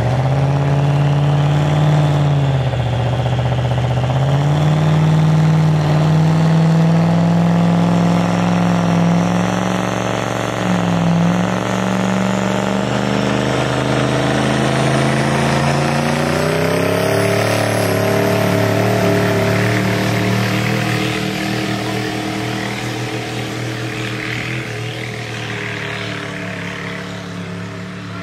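Truck-pull pickup engine running hard at high revs under load. Its note dips twice briefly, climbs again, then slowly fades toward the end.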